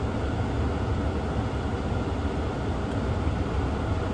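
Steady, even hiss inside a car's cabin, with no rhythm or pitch to it.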